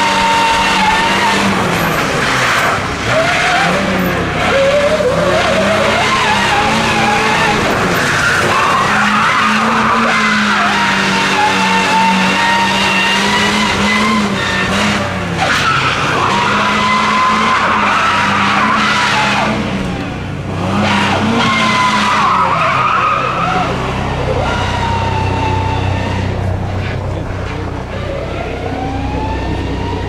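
Toyota HiAce rally van driven flat out on a tarmac stage: the engine revs up and drops back again and again through gear changes, while the tyres squeal and skid as the van slides through tight turns. A deeper rumble builds in the last several seconds.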